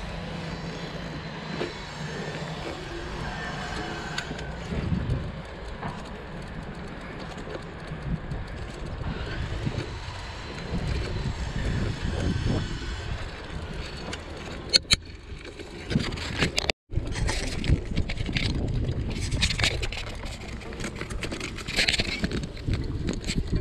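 Bicycle riding noise: tyres rolling over pavement and then grass, with an irregular low rumble on the camera microphone and scattered clicks and rattles from the bike. The sound cuts out for a moment past the middle.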